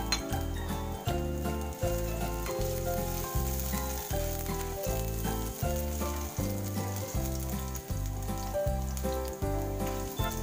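Minced garlic sizzling in oil in a stainless steel frying pan while a spatula stirs it, under background music with a steady beat.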